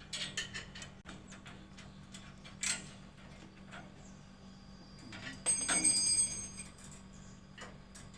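Hollow steel frame tubes of a swing-chair tent being handled and fitted together at a bolted joint: scattered clicks and taps, and a louder metallic clink that rings briefly about five and a half seconds in. A steady low hum runs underneath.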